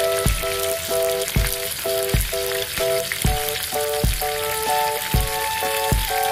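Mackerel steaks sizzling as they fry in hot oil in a pan, under background music with a steady beat.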